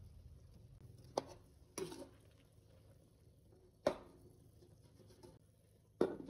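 A few separate short knocks and scrapes of a metal ladle against a steel wok while a simmering sauce is stirred. Near the end comes the loudest knock, a glass pot lid clanking down onto the wok.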